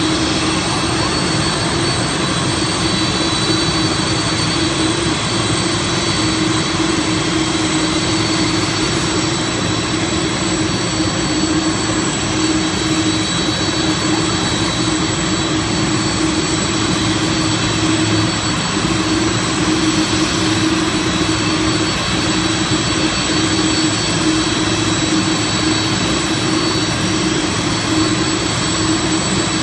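Jet engine noise from a Boeing 747-400 on pushback: a steady whine over a broad rumble, holding even throughout.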